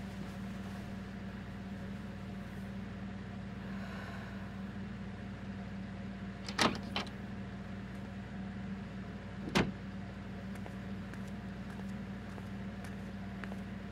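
Steady low hum of room tone, broken by a sharp knock a little past the middle (with a smaller echo of it just after) and another about three seconds later. Faint light taps follow near the end, footsteps on a tile floor.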